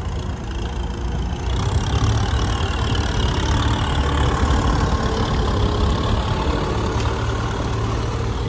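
Kubota M6040SU tractor's four-cylinder diesel engine running steadily under load in wet mud. It grows louder about a second and a half in as the tractor passes close.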